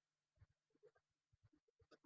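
Near silence, with faint, scattered small clicks and taps from handling.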